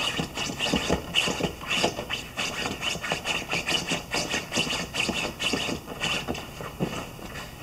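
A Brittany puppy digging at the cushion of a nylon-covered dog bed with its front paws: rapid, irregular scratching and fabric rustling, which stops near the end.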